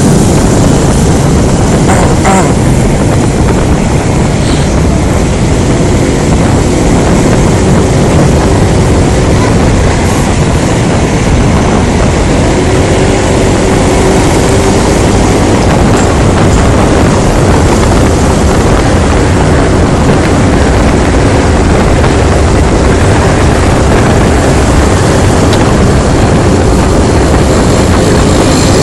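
Riding a Honda Scoopy scooter, heard through a phone microphone on the rider's helmet: a loud, constant rush of wind and road noise over the steady drone of the scooter's engine.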